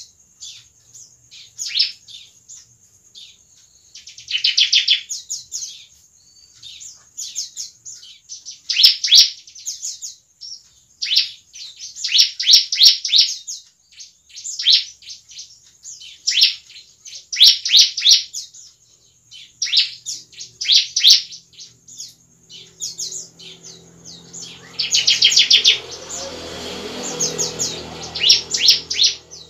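Bar-winged prinia (ciblek) calling in repeated bursts of high, sharp chirps and fast rattling trills, with short gaps between phrases. About two-thirds of the way through, a low steady hum comes in underneath.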